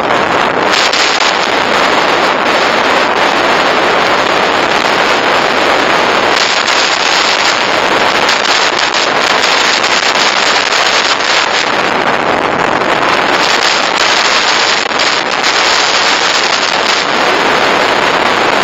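Steady wind rush buffeting the microphone of a dashcam on a moving motorcycle, with road and engine noise buried under it.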